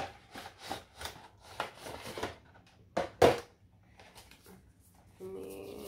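Clear plastic blister tray and cardboard box being handled during an unboxing: a run of rustles and light clicks, then two sharp plastic clicks about three seconds in, then quieter handling.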